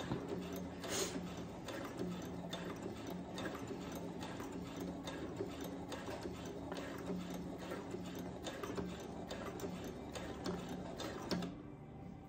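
Brother CS7000X computerized sewing machine stitching: a steady motor hum with rapid, regular needle ticks, stopping abruptly shortly before the end.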